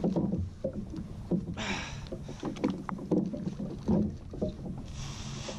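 Water lapping and slapping irregularly against the hull of a drifting jet ski, with two brief hissing rushes about a second and a half in and near the end.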